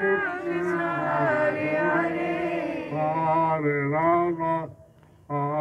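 A man chanting a devotional prayer solo in long, held melodic phrases, with no instrument behind him; his voice breaks off briefly about five seconds in.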